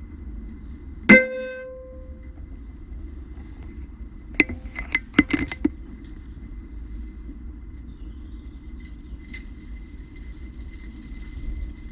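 Air Arms S410 air rifle firing about a second in, the pellet striking a metal knockdown target with a short ringing clang. A few seconds later comes a quick run of sharp metallic clicks and clacks.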